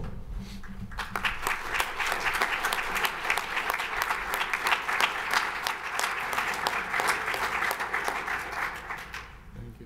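Audience applauding: many hands clapping, building about a second in and dying away near the end.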